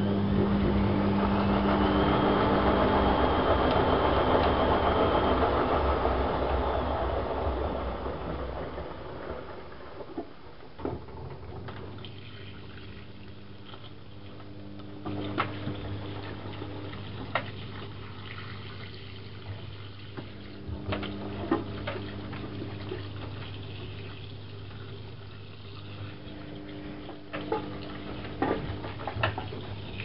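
Privileg Classic 30612 front-loading washing machine filling with water: a loud rush of water pouring into the drum, easing off about eight seconds in. After that the machine is quieter, with a low hum and scattered sharp clicks.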